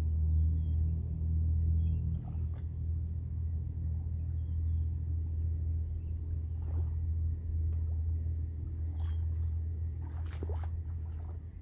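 A steady low rumble, with a few short high bird chirps and scattered light clicks over it. About ten seconds in comes a louder stretch of rustling and knocks as a fish is brought into a landing net.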